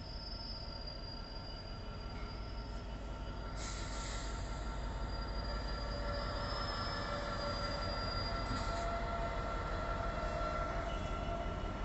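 Class 66 diesel-electric locomotive 66171, with its two-stroke V12 diesel, approaching at the head of a freight train. It gives a low engine rumble that grows steadily louder as it nears, with thin, steady high-pitched tones over it. There are short hisses about four seconds in and again near nine seconds.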